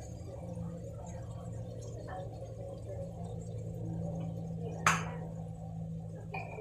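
Cooking at the stove: a steady low hum, with one sharp knock of a utensil against the pan about five seconds in and a lighter one near the end.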